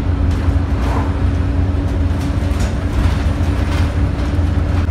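Interior noise of a single-decker bus on the move, heard from the passenger cabin. There is a steady, deep engine and road rumble, a constant hum, and a few light rattles.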